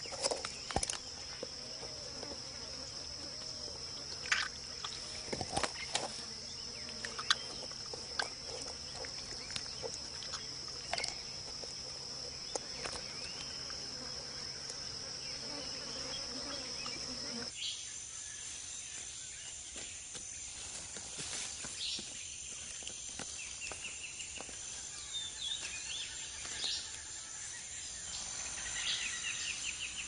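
Rainforest insect chorus: a steady high-pitched buzzing drone, with scattered sharp cracks and clicks in the first half. A little past halfway the drone changes to a slightly higher pitch, and short bird chirps come in near the end.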